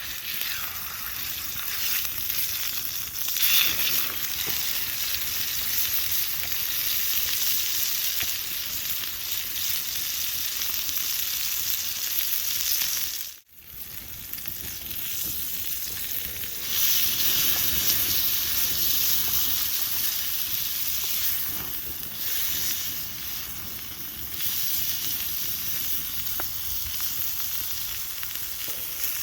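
Ribeye steak sizzling and frying in a pan, a steady crackling hiss, with a sudden brief drop-out about thirteen seconds in.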